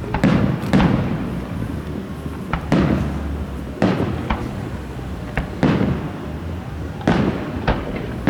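Aerial firework shells bursting one after another, about eight sharp booms, each trailing off in a rolling echo.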